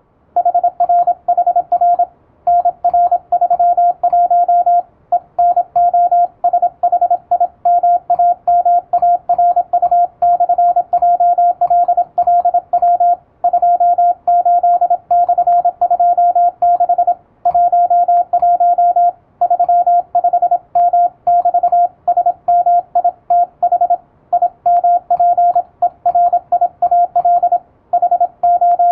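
Morse code (CW) sent fast with an electronic keyer, heard as a single steady beep tone keyed on and off in rapid dots and dashes. Short pauses separate the words.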